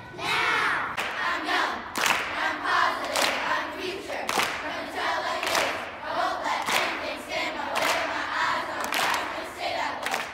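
Children's choir singing together, with hand claps on a steady beat about once a second.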